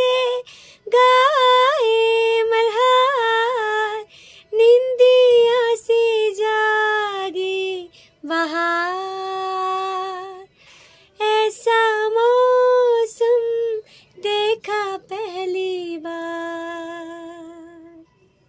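A woman singing a melody unaccompanied, in phrases of one to three seconds with short breaks between them, the notes held and bending in pitch; the last long note fades away near the end.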